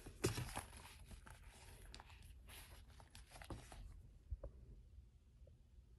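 Faint handling sounds of a leather planner being closed: a sharp knock just after the start, then soft rustling and rubbing of the cover, with a few light clicks later on.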